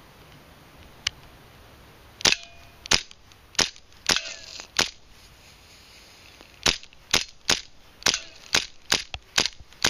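Tokyo Marui M1911A1 gas blowback airsoft pistol firing: five sharp shots a little over half a second apart, a pause, then a quicker string of shots. A few of the shots are followed by a brief ringing tone.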